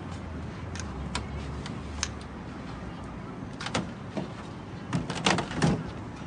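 Metal steaming trays of a rice-noodle-roll steamer being handled, giving scattered sharp clinks and then a louder run of clattering metal knocks near the end. A low rumble of traffic underlies the first two seconds.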